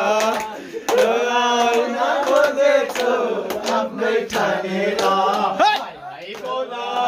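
A group of men singing a Nepali song together, with hands clapping along.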